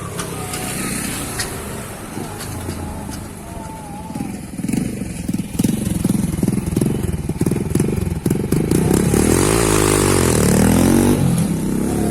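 Honda Pop 100's small single-cylinder four-stroke engine running through a 2-into-1 exhaust, getting much louder from about four seconds in as it accelerates, its pitch rising and falling near the end.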